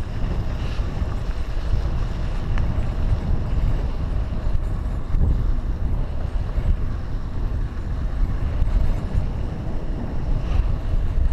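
Wind buffeting the microphone of a camera on a moving mountain bike, mixed with the rumble of the tyres rolling over a dirt trail.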